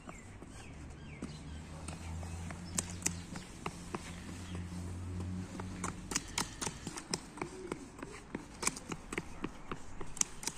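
A toddler's small boots stepping and trotting on wet asphalt, a few steps early on, then quick irregular footfalls from about six seconds in. A low steady hum sounds underneath for the first half and stops about six seconds in.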